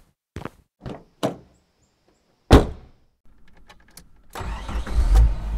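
Sharp ticks about twice a second, then a single loud thump about two and a half seconds in. Near the end a car's running noise rises in, with a low rumble, and it carries on steadily.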